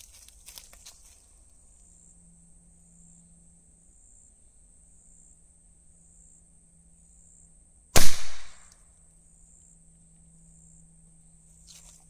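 A single .22 Short rifle shot, fired from a Winchester .22 rifle about eight seconds in: one sharp crack with a short tail. Before and after it there is only a faint steady high-pitched buzz.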